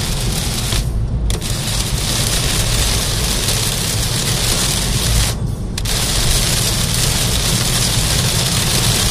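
Heavy rain drumming on a moving car's roof and windscreen, heard from inside the cabin over a steady low road rumble. The rain noise drops away briefly twice.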